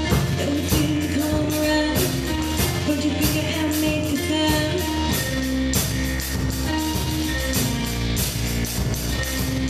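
Rock song with a voice singing over drums and guitar, keeping a steady beat.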